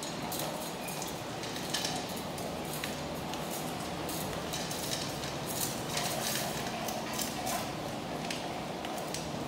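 Dogs eating from stainless steel bowls on a tile floor: the metal bowls clink and scrape as they eat, in a steady run of irregular small clicks.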